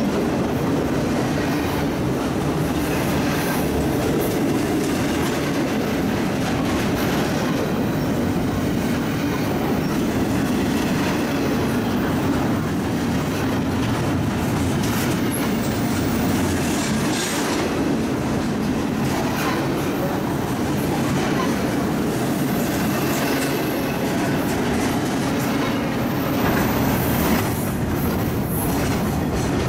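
Double-stack container well cars of a CSX intermodal freight train rolling past at speed close by, a steady, unbroken noise of steel wheels running on the rails.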